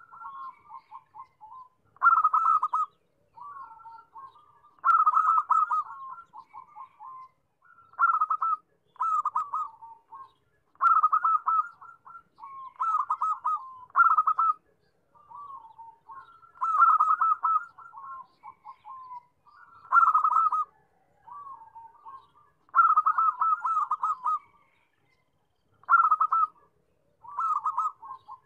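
Zebra dove cooing: short phrases of rapid, rolling notes repeated every one to three seconds, louder phrases alternating with softer trills.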